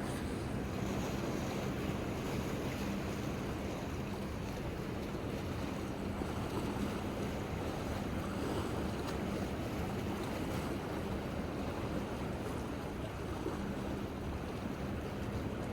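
Sea waves washing against the harbour breakwater, with wind buffeting the microphone. A faint, steady low hum runs underneath, dropping out now and then.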